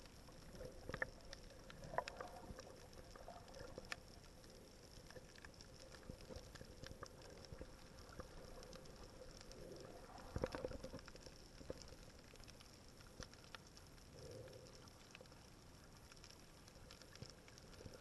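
Faint underwater ambience over a coral reef: a low hiss with scattered small clicks and crackles, a few clustered about ten seconds in.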